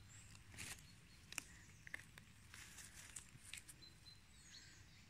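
Faint footsteps on dry leaf litter and twigs, with a few soft, scattered crackles.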